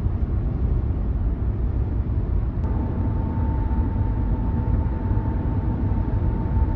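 Steady low rumble of a running engine, with a thin steady whine joining about two and a half seconds in.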